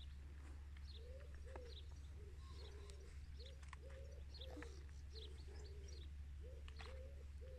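Faint bird calls: a run of short, low cooing notes, about two a second, starting about a second in, with scattered high chirps from small birds.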